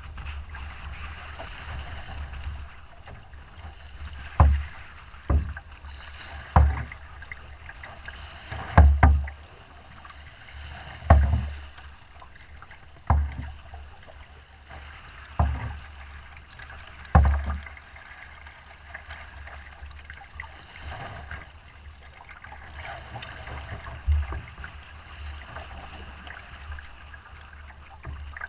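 Choppy waves slapping against a canoe's hull in sharp, irregular thumps, most about two seconds apart and fewer in the second half. A steady rush of wind and rough water sits under them.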